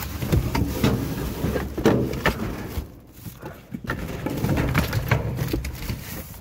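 Rummaging through trash in a dumpster: plastic bags rustling and cardboard boxes being shifted, with scattered knocks and clatters over a low rumble.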